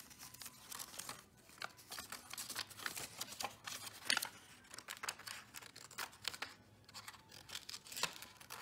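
Scissors snipping through folded paper in a run of short, irregular cuts, with the paper rustling as it is handled and turned.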